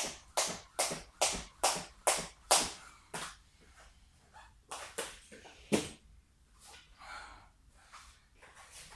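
Skipping rope turning, the rope slapping the rubber floor mat at each jump in an even rhythm of about two and a half slaps a second, stopping about three seconds in. Two single slaps follow, about five and six seconds in.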